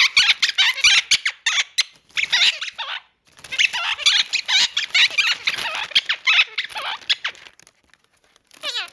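Quaker parrot chattering in a fast run of high squeaks and chirps, with a short break about three seconds in, going quiet near the end.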